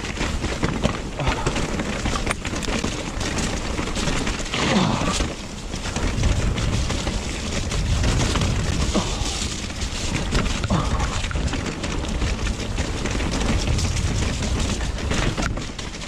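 Mountain bike riding down a rough, muddy trail: tyre and frame noise with frequent knocks and rattles, and wind rumbling on the chest-mounted microphone.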